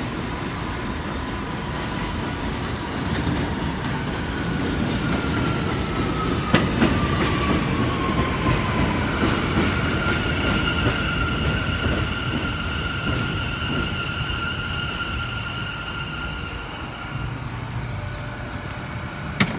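R179 subway train pulling into an elevated station and braking to a stop: a steady rumble with a few clicks over the rail joints, a whine that falls in pitch as the train slows, then steady high-pitched tones as it creeps to a halt. A single sharp click comes near the end.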